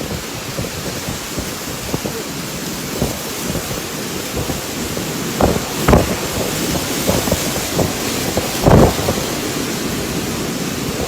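Storm wind blowing in a steady rush, with gusts buffeting the microphone in low thumps, the strongest about six seconds and nearly nine seconds in.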